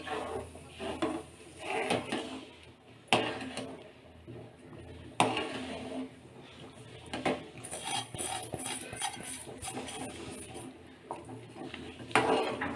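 Steel ladle stirring semolina into boiling water in a large metal pan, scraping and clinking against the pan, with a few sharp metal-on-metal knocks spread through.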